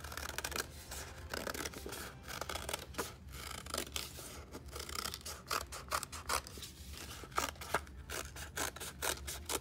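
Scissors snipping through folded white paper along a curved pencil line: a continuous run of short, uneven cutting snips.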